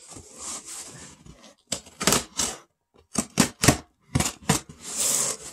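Packing tape being picked at and torn from a cardboard shipping box: a light scraping rustle, then several quick bursts of sharp crackling rips, ending in a longer tear.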